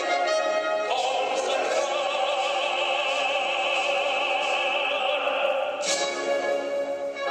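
A tenor singing a national anthem in operatic style. He holds one long note with a wide vibrato for about five seconds and moves to a new note near the end.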